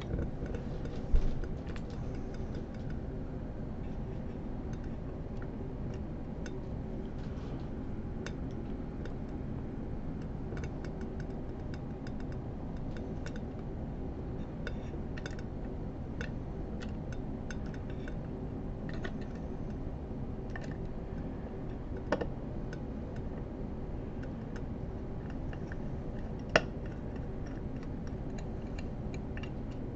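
Small scattered clicks and taps of metal microscope parts being handled and adjusted by hand, with a few louder knocks, over a steady low hum.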